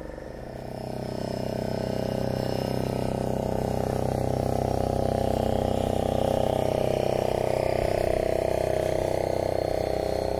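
KastKing Sharky III spinning reel being cranked to retrieve a soft plastic lure: a steady buzzing whir that fades in over the first second or two.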